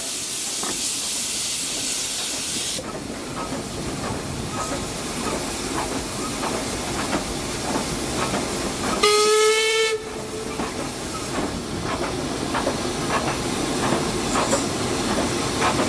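Saddle-tank steam locomotive moving off: a loud hiss of steam that cuts off abruptly about three seconds in, then a run of regular exhaust beats. Just past halfway a steam whistle gives one short blast of about a second, the loudest sound here.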